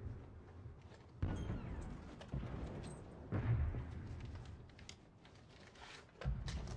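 Distant artillery fire: three dull, low booms about two seconds apart, each rumbling away over a second or so, with faint creaks and small knocks between.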